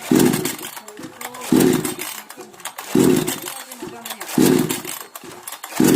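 Recoil starter of a 58 cc two-stroke petrol chainsaw being pulled five times, about once every second and a half, each pull cranking the engine briefly without it catching and running. The saw has a starting fault: it fires once and then dies.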